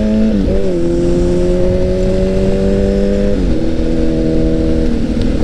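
Honda CBR1000RR inline-four sportbike engine under way, its pitch climbing steadily and dropping at upshifts about half a second in and again about three and a half seconds in, over wind rush on the microphone.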